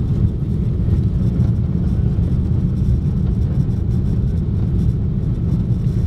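Airbus A340-600's four Rolls-Royce Trent 500 engines and the rushing air heard inside the cabin during takeoff: a steady, loud, low rumble with no change in pitch.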